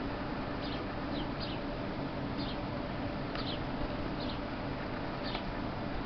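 Bank swallows calling at their burrow colony in a dirt bank: short, high chirps scattered every second or so, over a steady background hum.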